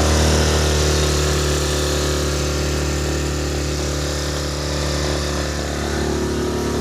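Hero Maestro Edge 125 scooter's single-cylinder engine throttled up and held at a steady raised speed, testing a newly fitted CVT drive belt that replaced a loose, rubbing one. No clutch-side noise is called out: the mechanic takes the noise problem as solved.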